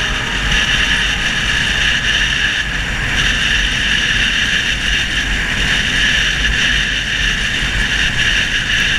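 Steady wind rush and road noise from a moving motorcycle, picked up by a helmet-mounted camera, with a constant low rumble underneath.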